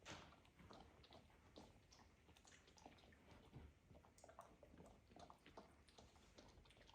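Near silence in a small room, broken by faint, irregular little clicks and taps.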